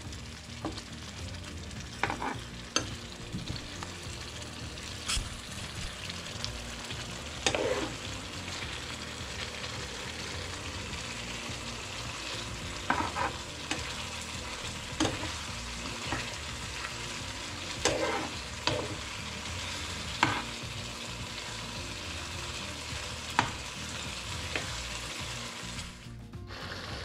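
Prawns in a thick ghee-roast masala sizzling in a frying pan while a metal spatula stirs them. The spatula knocks and scrapes sharply against the pan about ten times, irregularly.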